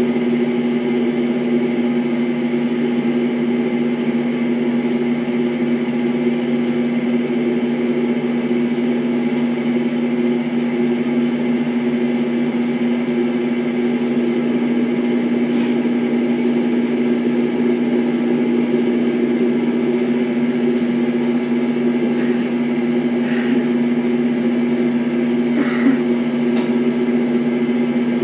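A steady, unchanging low hum with a couple of fixed tones, with a few faint short sounds near the end.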